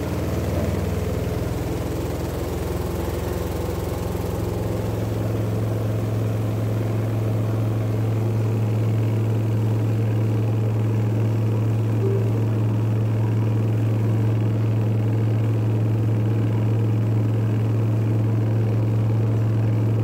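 innoQ semi-automatic washing machine running, its electric motor giving a steady low hum that grows slightly louder a few seconds in.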